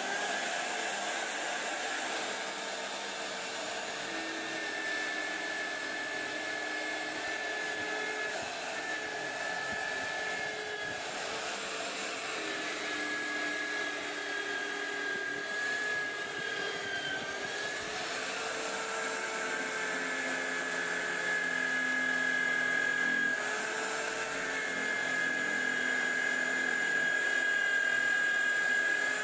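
Electric drill mounted in a homemade drill press, running with a steady whine as it bores holes in plywood. Its pitch shifts a little as the bit takes load.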